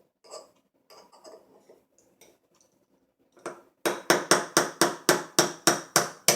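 A few light handling clicks, then a fast, even series of about ten sharp hammer taps, roughly four a second, on a punch driving out the roll pin of an AR-15 charging handle latch.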